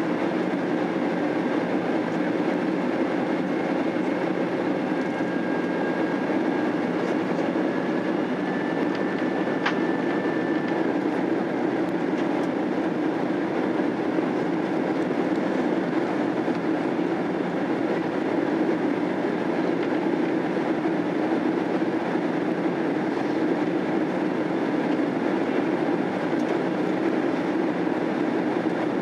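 Steady cabin noise of a Boeing 767-300 airliner in flight, engines and airflow heard from a rear seat, with a faint whine that drifts slightly in pitch. A single faint click about ten seconds in.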